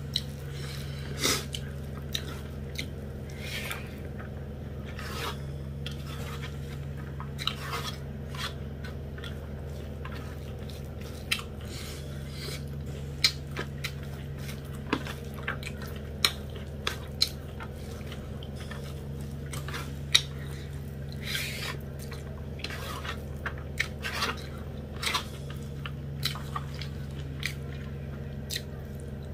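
A person eating rice and dried buffalo-meat curry by hand from a steel plate: chewing and mouth sounds with many short, irregular clicks as fingers scoop food against the plate. A steady low hum runs underneath.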